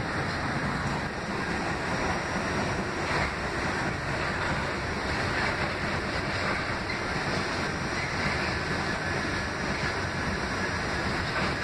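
R68A subway car running along the track, heard from inside the car: a steady noise of wheels on rails and car rumble, with no distinct events.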